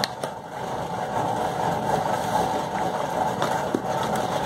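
A steady low mechanical hum, like a motor or engine running, with two light clicks at the start as oil pastel sticks knock in their plastic tray.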